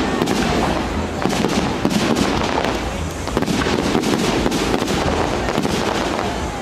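Aerial firework shells bursting overhead in a dense barrage, many sharp bangs in quick succession over a continuous rumble.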